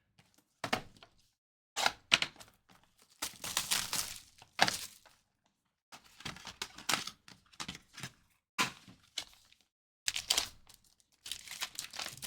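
Trading-card packaging being opened and handled at a table: a series of sharp clacks and thunks with crinkling and tearing, including a longer stretch of crinkling about three to five seconds in.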